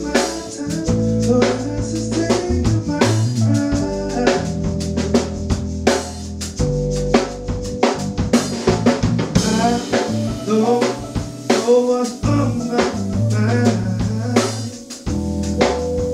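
A live band playing an instrumental passage of a slow soul-funk tune: drum kit with snare rimshots and kick drum, over a held bass line with keyboard and guitar. The band thins out briefly near the end before coming back in.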